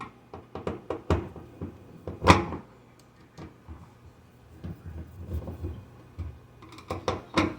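Hands handling a front-load washer's door lock assembly: scattered clicks and knocks, the loudest about two seconds in.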